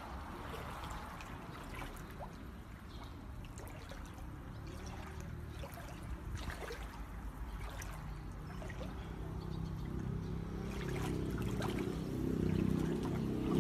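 Floodwater running through a flooded street: a steady watery rush with scattered small splashes and clicks. A low rumble builds over the last few seconds.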